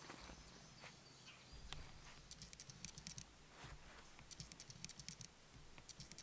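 Near silence: a faint outdoor background with a few short runs of rapid, high-pitched clicking.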